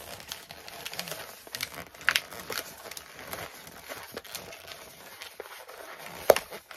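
Inflated white latex modelling balloons squeaking and rubbing against each other and the hands as they are twisted into the elephant's feet, a run of short crackly squeaks with one sharper snap near the end.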